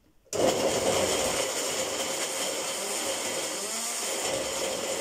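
Electric countertop blender switched on suddenly about a third of a second in, then running steadily at full speed as it blends a liquid marinade.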